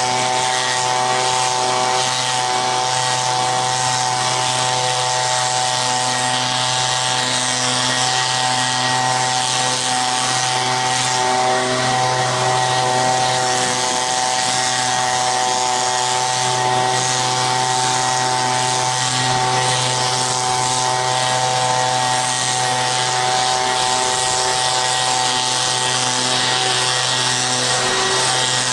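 Handheld leaf blower running steadily: an even drone over a loud rush of air.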